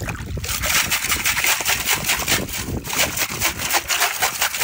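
Stones and shells rattling and scraping inside a perforated metal sand scoop as it is lifted and shaken, with river water pouring out through the holes. A fast, continuous rattle starts about half a second in.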